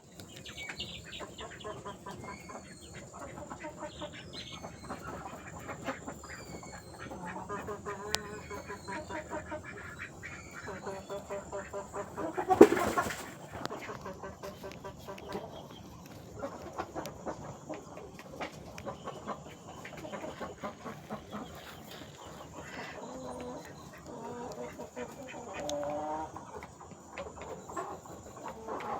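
Chickens clucking with many short calls, plus a louder burst about halfway through and small higher chirps in the background.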